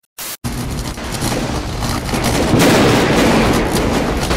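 Intro sound effects: a few short stuttering bursts of static, then a continuous crackling rumble of an electric explosion that gets louder about halfway through.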